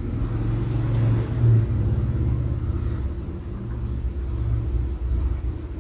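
A steady low hum, swelling and easing slightly in strength, with a thin high whine above it.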